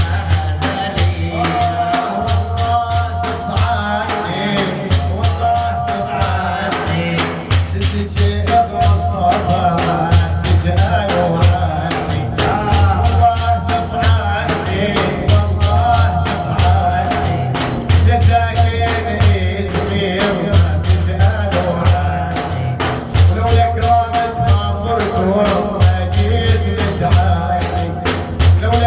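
Arabic Sufi praise song (madih) sung by a male voice over a steady, pulsing percussion beat.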